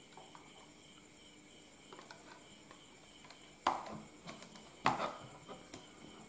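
Handling knocks of a plastic digital multimeter being set down on a tabletop: two sharp knocks a little over a second apart in the middle, with a few lighter taps and clicks around them.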